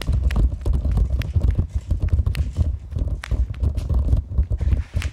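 Heavy wind rumble on the microphone of a handheld camera in motion, with a rapid, irregular run of knocks and rattles.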